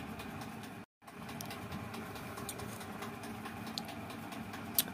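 A spoon scraping and clinking in a ceramic bowl of soup, faint scattered ticks over a steady background hum, with one sharper clink near the end. The sound cuts out completely for a moment about a second in.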